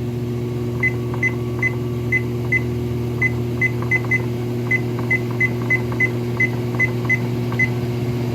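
Treadmill drive motor running with a steady hum, while the treadmill's control panel gives a series of short high beeps, about seventeen in all, two or three a second at uneven spacing.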